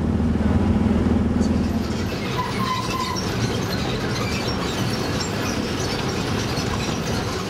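A moving vehicle: a steady low engine hum that fades about two seconds in, leaving an even rumbling ride noise with light scattered rattles and clicks.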